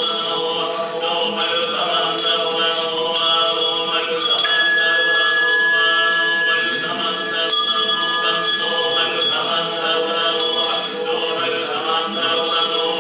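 Music made of layered sustained tones. A single high steady tone holds from about four and a half seconds in until about nine seconds.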